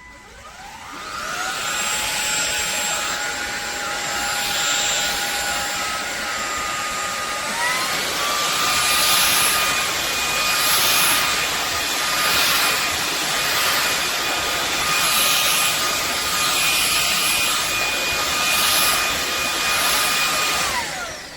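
SunSare cordless stick vacuum cleaner running: the motor whines up to speed about a second in, over a steady rush of suction air. About eight seconds in the whine steps up in pitch, and it winds down and stops at the very end. The noise swells and eases about every two seconds.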